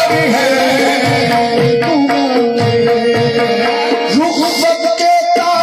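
Live qawwali: a singing voice over held harmonium tones and a steady hand-drum rhythm.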